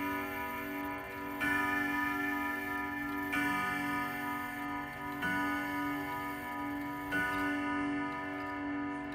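1978 Ethan Allen grandfather clock's Hermle-made Urgos triple-chime movement sounding its chimes: a struck, ringing note about every two seconds, each one sustaining as the next comes in, the last fading out near the end.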